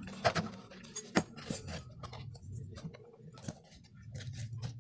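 Handling noise from a plastic oil-bottle holster and a strap with a metal buckle being fitted together: scattered clicks, knocks and rustles, the sharpest about a quarter-second and a second in.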